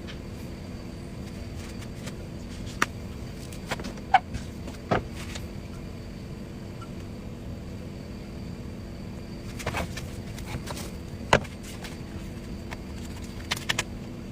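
A knife carving a watermelon gives scattered sharp clicks and taps against the rind, the loudest about four and eleven seconds in, over a steady low background hum.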